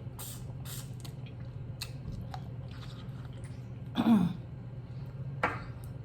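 Close-miked chewing and mouth sounds of a person eating: soft wet smacks and clicks, with a brief throat clearing about four seconds in.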